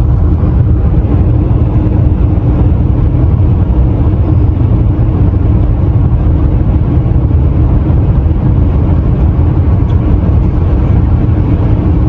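Motor vehicle running: a steady, loud low rumble of engine and road noise with a faint hum.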